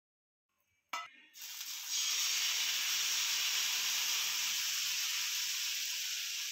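A short knock, then thin rava and fenugreek dosa batter sizzling steadily with a high hiss as it is poured from a ladle onto a hot tawa.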